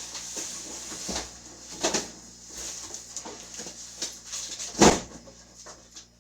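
Boxes and household items being shifted and stacked: rustling and scraping with several knocks, the loudest a single thump about five seconds in.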